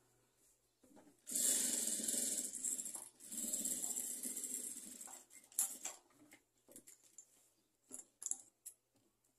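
Electric sewing machine stitching lace trim onto a fabric cover, running in two bursts of a second or two with a short stop between, followed by a few light clicks and rustles of fabric being handled.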